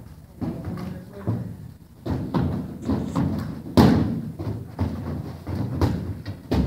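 Kicks landing on freestanding heavy bags: a series of irregular thuds from several students working through side kick, back kick and roundhouse combinations, the hardest one about four seconds in.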